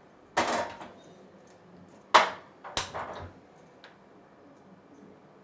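Stainless-steel steamer pot and lid set down on a gas stove's burner grate: a metallic clatter about half a second in, a loud clunk about two seconds in with two smaller knocks right after, then a faint click as the burner knob is turned.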